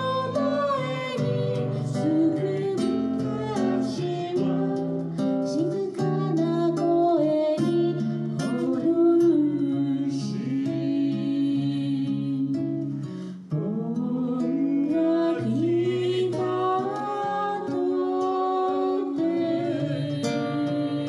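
A man singing into a microphone while strumming an acoustic guitar. The playing breaks off briefly about two-thirds of the way through.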